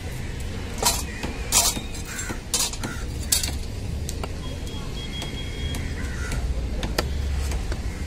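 Busy fish-market background with a steady low rumble and several short, sharp knocks or clinks in the first few seconds. A single click comes near the end, and a thin steady whistle-like tone sounds briefly midway.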